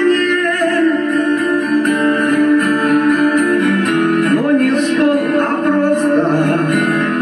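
A song with guitar and some vocals playing through the built-in speakers of an old Samsung CRT television, with almost no deep bass coming through.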